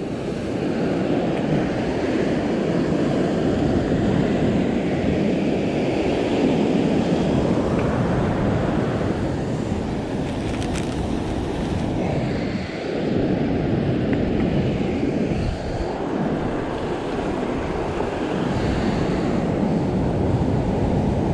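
Wind buffeting the microphone in rough weather, a steady rumbling rush over breaking surf on the beach.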